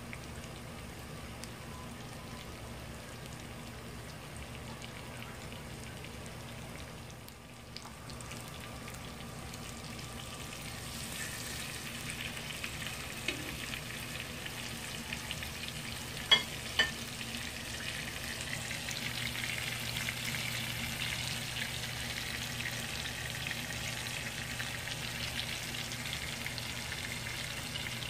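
Salmon steak sizzling in hot oil in a flat pan, a steady hiss that grows louder about a third of the way through, as the steak is turned. Just past the middle come two sharp clicks of the metal spatula against the pan.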